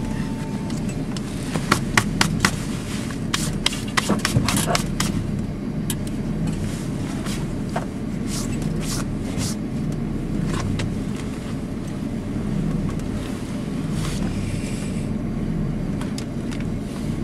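Vehicle engine running steadily at idle, with scattered sharp clicks and knocks, most of them in the first five seconds.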